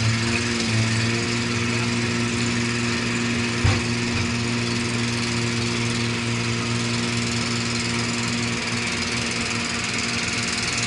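Excavator's diesel engine running steadily and close by while the arm swings its grab, with one sharp clank about four seconds in.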